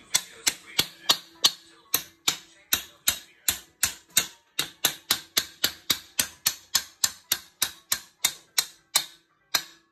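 A long run of sharp clicks or taps, about three a second, evenly paced, stopping just before the end.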